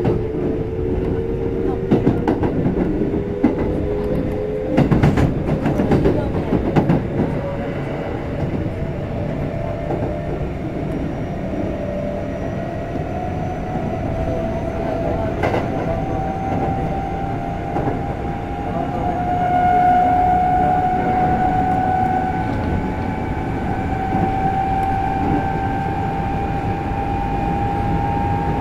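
Kintetsu 5200-series electric train accelerating, with the whine of its Mitsubishi GTO-thyristor VVVF inverter and traction motors rising steadily in pitch as speed builds, over running rumble. Several clacks of the wheels over rail joints come in the first seven seconds or so.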